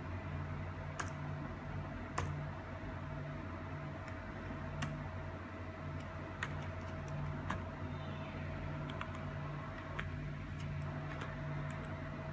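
Laptop keys pressed one at a time: about fifteen separate, irregularly spaced clicks, more of them in the second half, over a steady low hum.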